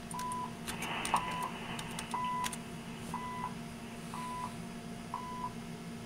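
Harris RF-5022 receiver tuned to 7.850 MHz, heard through a room speaker, picking up the CHU Canada time station: a short steady beep once every second, the station's seconds ticks. A few keyboard key clicks in the first couple of seconds as a command is typed.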